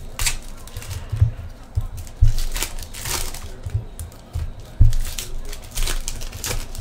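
Foil trading-card pack wrappers being torn open and crinkled by hand, in a series of short crackling tears. A few dull knocks of handling on the table come in between, the loudest about two and a quarter and nearly five seconds in.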